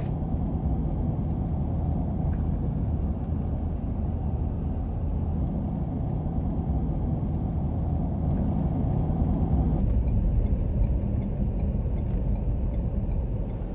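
Car driving along the highway: a steady low rumble of engine and road noise.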